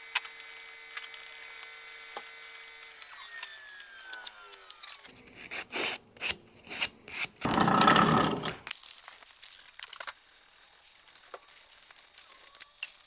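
A power sander's motor winds down, its hum falling in pitch and fading over the first five seconds. Then sandpaper rubs on a black walnut workpiece in irregular strokes, loudest about eight seconds in.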